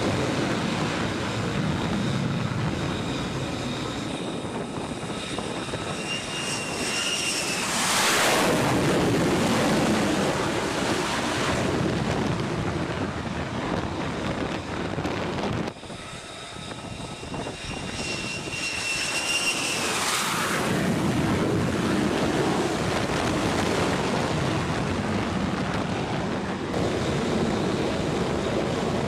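Carrier jet fighters, F-35Cs, launching off the flight deck twice, over steady jet engine noise. Each time a high whine builds, then a loud rush of jet noise peaks and fades as the aircraft goes away, once about a third of the way in and again about two-thirds in.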